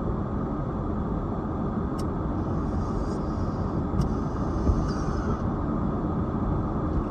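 Steady low road and engine noise heard inside a moving car, with two faint clicks about two seconds apart and a soft hiss rising and fading in the middle.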